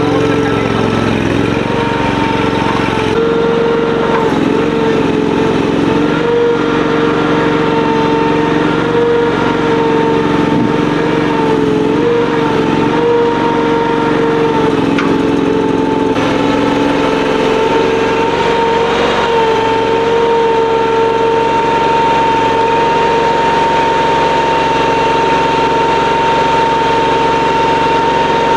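Honda gasoline engine of a HY480D sit-on mini skid steer loader running steadily at working speed, with its pitch dipping slightly now and then in the first half as the machine works.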